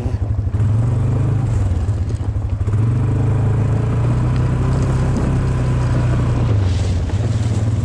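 Polaris Sportsman 570 ATV's single-cylinder engine running at low riding speed, its pitch stepping up and down a few times with the throttle.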